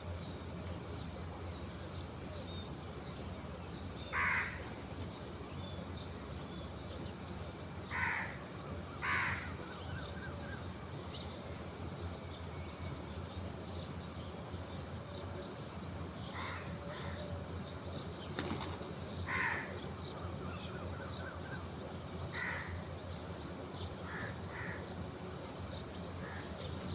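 Crows cawing in single calls, about eight of them spread irregularly, over a constant scatter of faint high chirps from smaller birds.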